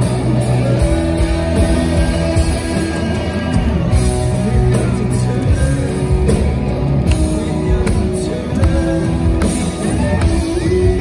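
Live rock band playing: electric guitars, bass and drums with a man singing lead, amplified through a PA and heard from the audience.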